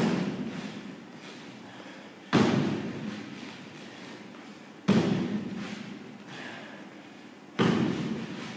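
Feet landing hard during box jumps on a wooden plyometric box: four heavy thuds about two and a half seconds apart, each dying away with an echo.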